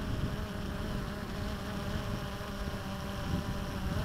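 XK Detect X380 quadcopter's motors and propellers buzzing steadily in flight.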